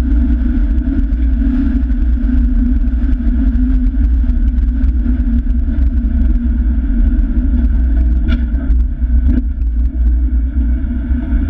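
Vehicle driving along a sand track: steady engine and road rumble, with two short knocks about a second apart, eight to nine seconds in.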